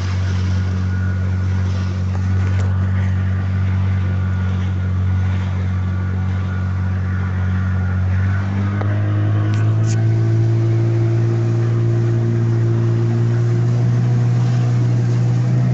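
Outboard motor of an inflatable rescue boat running steadily under way. Its pitch steps up a little past halfway as it speeds up, then holds.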